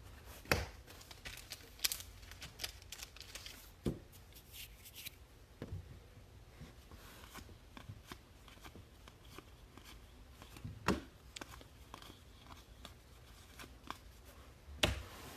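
Baseball cards being handled and flipped through: rustling with scattered light clicks and taps, denser in the first few seconds, and a few louder knocks, about half a second in, around four and eleven seconds, and near the end.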